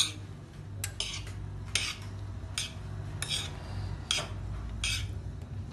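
Metal spoon scraping and clinking against a plate while mixing chopped onion, tomato, capsicum and green chilli, in about nine short, uneven strokes.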